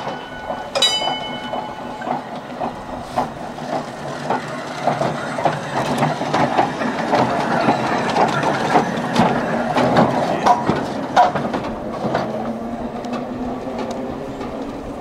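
Vintage open-top double-deck electric tram passing close at low speed, its steel wheels rumbling and knocking over the rail joints and points in a run of irregular clacks. The sound builds as it goes by and fades as it draws away, with a brief ringing tone about a second in.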